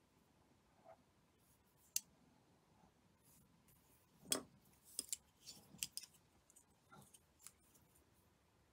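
Faint small clicks and ticks of plastic tatting shuttles and thread being handled, with the sharpest about two seconds in, another just past four seconds, and a quick run of clicks around five to six seconds.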